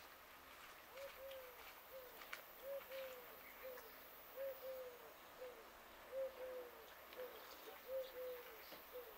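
A dove cooing a three-note phrase, short, longer, short, repeated five times at an even pace.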